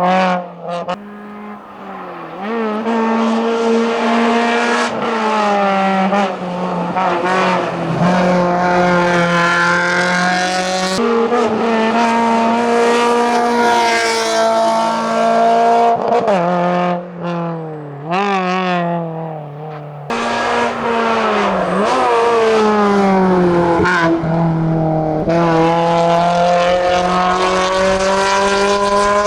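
Suzuki Swift Sport hillclimb car at full attack, its engine revving hard and running up through the gears, with the pitch rising then dropping at each gear change and brief lift of the throttle, several times over.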